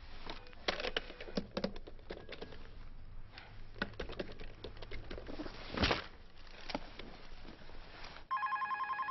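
Sharp clicks and knocks as a telephone handset is picked up and dialled, the loudest a little before six seconds in. Near the end, an electronic telephone ringer starts trilling in fast pulses.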